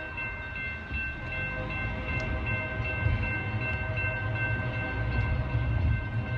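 Norfolk Southern locomotive horn sounding a steady, held chord in the distance, heard from inside a moving car over the low rumble of its road noise.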